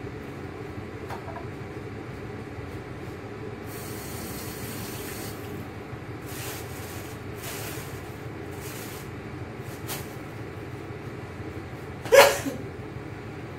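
Covered pot of asam pedas simmering on the stove, with a steady low rush and several short hisses of steam. A single sharp, loud sound comes near the end.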